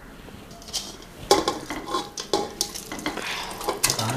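Steel colander knocking and scraping against the rim of an aluminium pressure cooker as pieces of beef are tipped in: several clinks with a short metallic ring, and a rustling slide about three seconds in.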